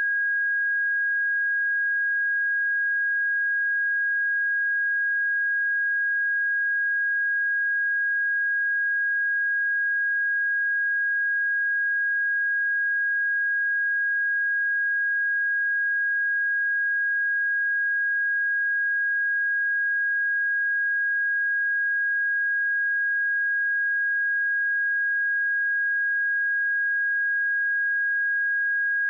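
A pure 1638 Hz sine-wave test tone, one steady high pitch held at a constant level with no other sound.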